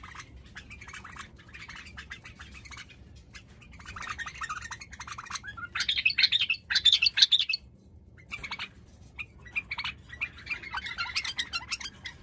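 Caged white-eared bulbuls calling in bursts of quick, harsh chattering notes, loudest about six to seven and a half seconds in.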